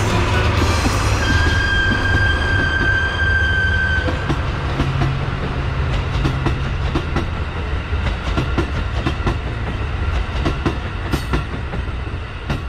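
A JNR DD51 diesel-hydraulic locomotive passing close at speed: its engine drone under a high, steady whistle that sounds from about a second in for nearly three seconds. Then the coaches roll past with a rhythmic clickety-clack of wheels over rail joints.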